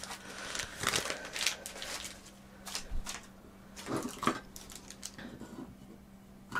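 Plastic toy packaging being handled: scattered light rustles and crinkles in the first couple of seconds, then a few sharper clicks about four seconds in, over a faint steady hum.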